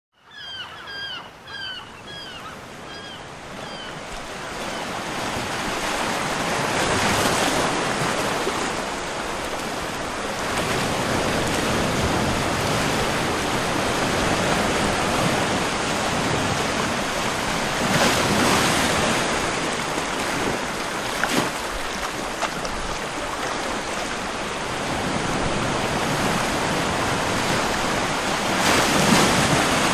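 A steady rush of flowing water that builds over the first few seconds and then holds. A bird chirps about eight times near the start.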